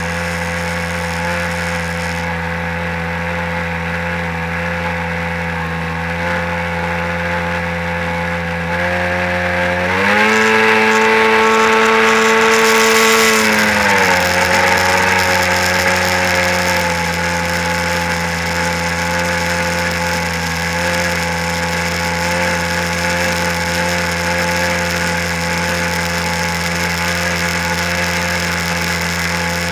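1997 Sea-Doo SPX jet ski's two-stroke engine running steadily at speed over the hiss of its wake spray. About ten seconds in it revs up, holds the higher pitch for about three and a half seconds, then drops back.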